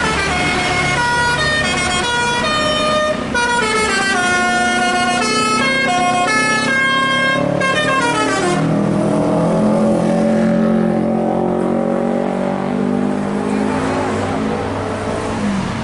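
Bus 'telolet' basuri melody horn playing a tune of stepped notes with quick slides between them. After about eight and a half seconds a lower, steadier pitched sound takes over.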